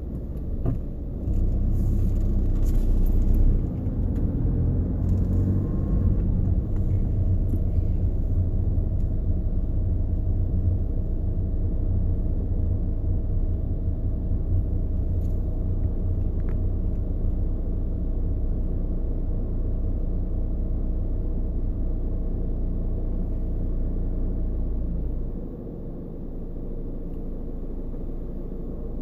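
Volkswagen Jetta TDI coasting in neutral to a stop, with a loud low rumbling, vibrating rattle that the owner likens to a transmission bearing and traces to the center console. The rumble drops off sharply about 25 seconds in.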